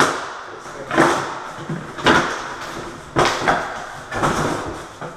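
A cardboard box being handled and dragged: a series of short scrapes and knocks, roughly one a second.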